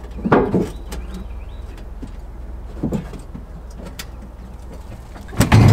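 Polaris Ranger UTV dump bed being tipped up by hand, with a few knocks as it rises, the loudest near the end. A bird chirps briefly in the background.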